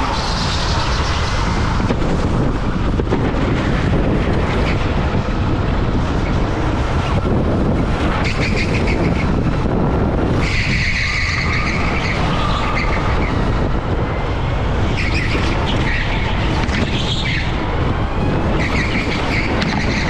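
Rental go-kart running at speed on an indoor track, heard from a camera mounted on the kart: a steady rush of motor and wind noise, with several short, high tyre squeals as it slides through corners.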